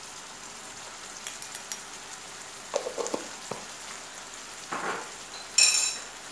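Chopped onion and diced turkey frying in olive oil in a non-stick pan, a steady sizzle. Over it come a few light clicks and knocks of a utensil against the pan, and near the end a sharp ringing clink, the loudest sound.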